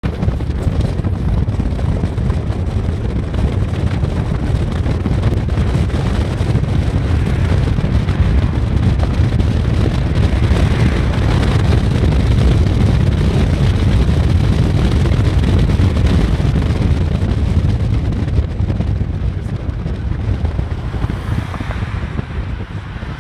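Wind rushing over the microphone and the road noise of a moving car, a steady loud low rumble that eases slightly near the end.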